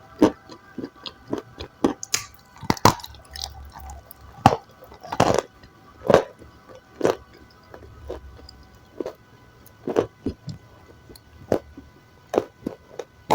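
Close-miked eating: irregular sharp bites and chewing sounds, roughly one a second.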